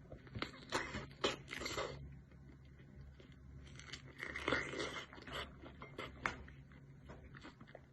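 A mandarin orange being peeled by hand: short tearing and rustling bursts of the peel coming away, with small clicks in between, and a longer tear about four seconds in.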